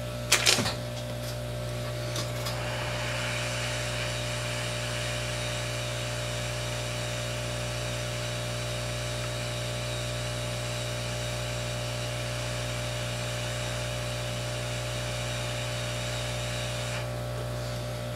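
Brief clatter, then a hot-air rework station blowing a steady airy hiss onto the iPhone 5c logic board for about fifteen seconds, over a low mains hum. The hot air is melting the solder under the Tristar (U2) charging chip so it can be lifted off. The airflow stops near the end.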